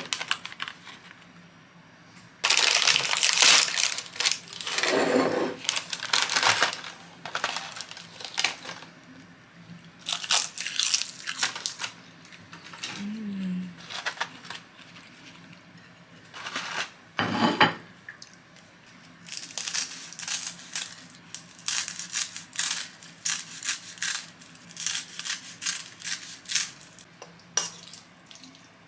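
Crisp sheets of seasoned seaweed (gim) being handled and broken up, with the plastic tray crinkling: irregular dry crackles and rustles, with a dense run of rapid crackling in the later part.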